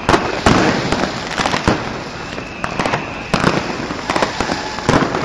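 New Year's Eve fireworks and firecrackers going off all around. Loud sharp bangs come at irregular intervals, a second or less apart, over a constant din of more distant bangs and crackle.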